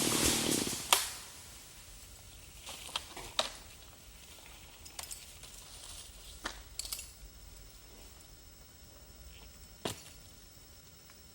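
A chainsaw winding down and stopping in the first second, then scattered light clicks and knocks. Faint steady insect calls sound in the background.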